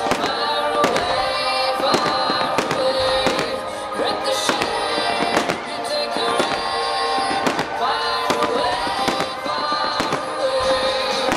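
Show fireworks going off: spark fountains and aerial bursts popping and crackling in quick, irregular bangs, over loud music with held notes.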